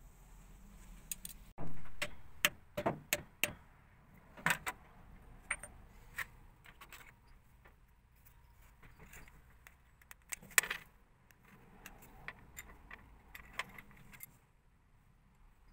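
Small metal tools and parts handled in a workshop: a string of light metallic clinks and knocks, several close together in the first few seconds, then scattered, with a sharper clink about ten seconds in.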